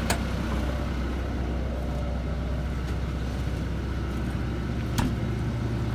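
Volvo L45G wheel loader's diesel engine idling with a steady low hum, with two sharp clicks, one at the start and one about five seconds in.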